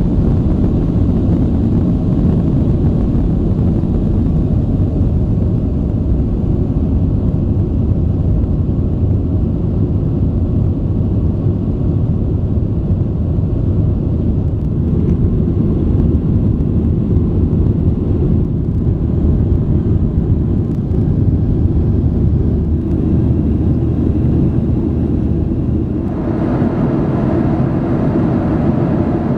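Cabin noise of a Boeing 737-800 heard from a window seat over the wing during takeoff and climb: a loud, steady low rumble of its CFM56 engines at takeoff thrust and the rush of air along the fuselage. About 26 s in the sound changes suddenly to a lighter, hissier cruise cabin noise.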